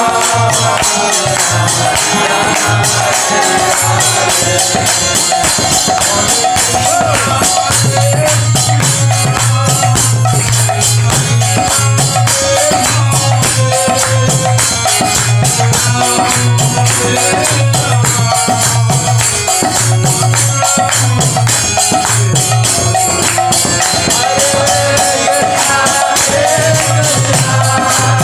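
Kirtan singing: a man's voice chanting a devotional melody while he plays a pair of small brass hand cymbals (kartals) in a steady, fast rhythm, over a low sustained note.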